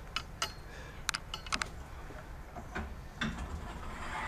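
Handling noise as a clip-on microphone is taken off: several sharp clicks in the first second and a half, then a few softer knocks.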